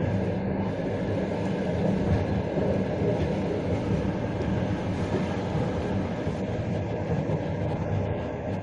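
Passenger train running along the track, heard from on board: a steady rumble of wheels on rails with a low hum underneath.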